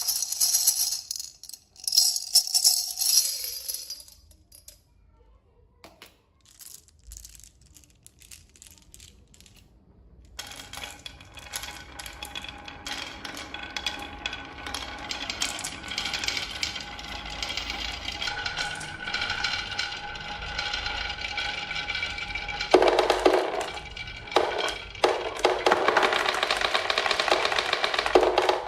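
Marbles rolling and clattering down a HABA wooden marble run: a bright rattling clatter at first, then a quieter stretch of scattered clicks. From about ten seconds in, a dense, steady rolling rattle runs on and grows louder near the end before stopping suddenly.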